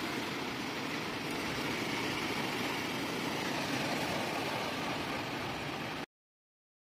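Small waves washing onto a pebble beach, a steady hiss with wind rumbling on the microphone. The sound cuts off suddenly about six seconds in.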